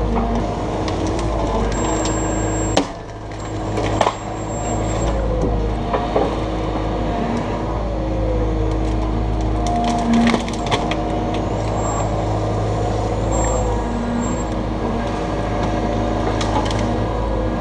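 Takeuchi TB290 excavator's diesel engine running steadily under load, with hydraulic whines rising and falling as the arm works. Wood cracks and snaps sharply every few seconds as pine trees and roots are torn out.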